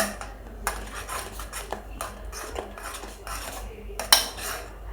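A spoon stirring oat powder and rice flour into hot milk in a pot, scraping and clinking against the pot's sides in repeated strokes, with one sharper clink about four seconds in.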